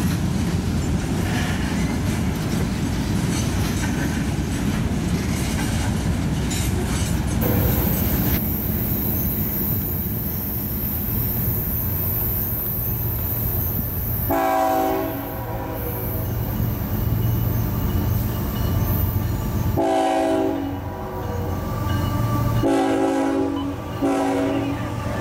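A freight train rolling past with a steady rumble and wheel clatter. Then a CSX locomotive approaches with its diesel engine rumbling and sounds its multi-note air horn in several blasts through the second half.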